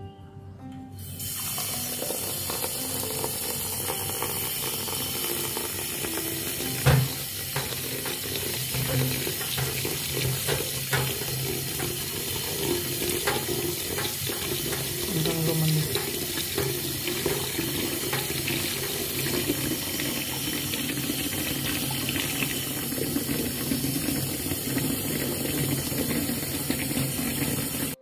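Kitchen tap running into a stainless steel sink, the water splashing through a mesh strainer full of glass noodles as they are rinsed. It starts about a second in, with a few knocks of a spatula against the strainer, the loudest about seven seconds in.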